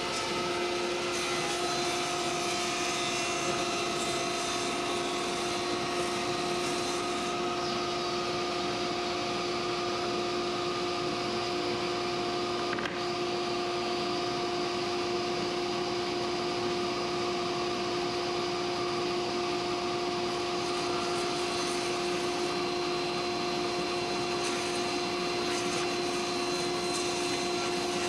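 Table saw running steadily at full speed, a constant motor whine over a rushing hiss, with a single brief click about 13 seconds in.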